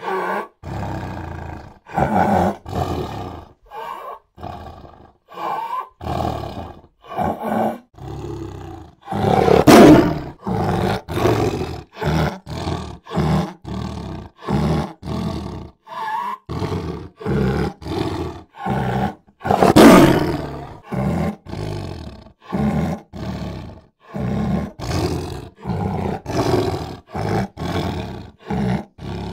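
Big cats roaring and snarling in a quick run of short, choppy calls. Two louder, longer roars stand out, about ten and about twenty seconds in.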